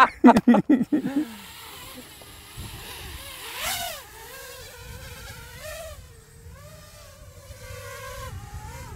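Five-inch FPV racing quadcopter on a 6S battery, its motors and props whining as it lifts off and hovers. The pitch wavers up and down with the throttle, and there is a sharp rising surge a few seconds in.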